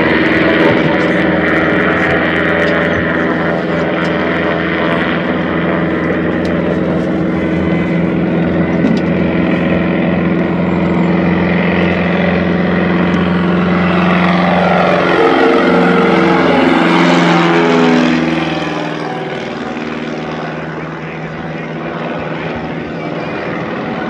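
Piper Super Cub floatplane's engine and propeller at full takeoff power, a steady drone. About fifteen seconds in it drops in pitch as the plane goes past, then fades over the last few seconds.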